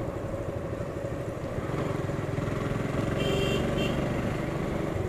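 Motorcycle engine running while riding, heard close up from the rider's own bike, getting a little louder about two seconds in. Two short high beeps sound about three seconds in.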